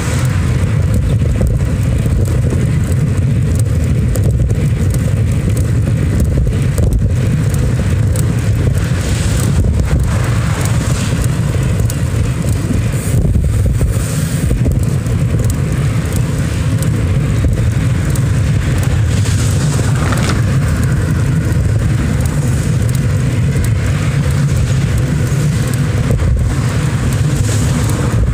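Steady low rumble of wind buffeting the microphone of a camera riding on a moving vehicle, mixed with road and traffic noise.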